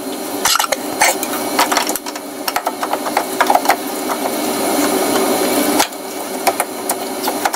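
Irregular clicks and knocks of a hand tool working on metal as a 10 mm bolt on top of a Toyota D-4D diesel's alternator is undone, over a steady background hum.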